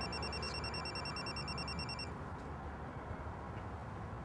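Electronic telephone ringer trilling in a rapid warble for about two seconds, then falling silent in the pause between rings.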